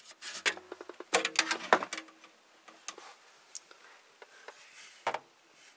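Side panel of a desktop computer case being taken off: a quick cluster of clicks and knocks in the first two seconds, then a few scattered light clicks and taps.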